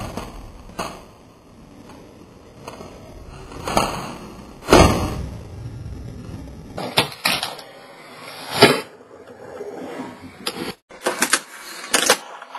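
Tech Deck fingerboard being flicked and landed on a wooden desk and a cardboard box. A series of sharp clacks comes at uneven intervals, the loudest about a third of the way in and again past halfway, with short scrapes and rolls of the small wheels and board between them.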